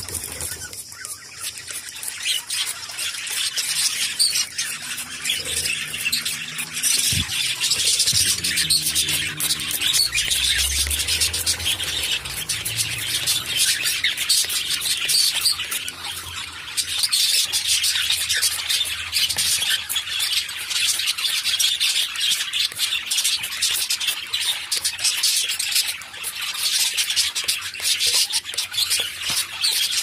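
Cockatiels chirping and squawking in a dense, continuous high-pitched chatter while they bathe under a water spray.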